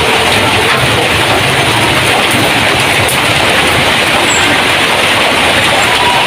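Heavy rain drumming steadily on a corrugated tin roof, a loud, even hiss that does not let up.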